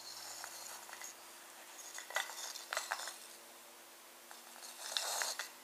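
Small wooden clicks and knocks with rustling as a gloved hand handles a wooden pull-along toy train, a cluster of sharp clicks about two seconds in and a louder rustle near the end.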